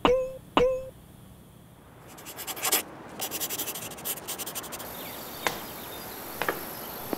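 A pen scratching across paper in quick scribbling strokes for about three seconds: foley for writing. It follows a short squeak right at the start and is followed by two light ticks near the end.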